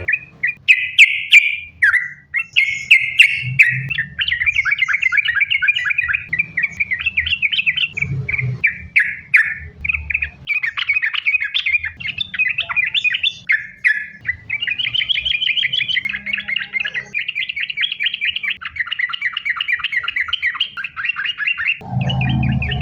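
Sooty-headed bulbul (trucukan) singing without pause in rapid, run-together chattering phrases, the continuous 'sambung ropel' song. A low rumble sounds under the song near the end.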